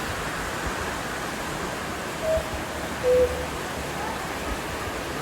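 The world's largest cuckoo clock calling one two-note "cuckoo", a higher note about two seconds in and a lower note just under a second later, as it strikes 11 o'clock. A steady hiss runs underneath.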